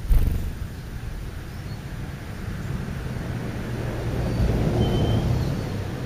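A car passing on the street: a low rumble that swells to a peak about four to five seconds in and then fades. A short sharp thump comes right at the start.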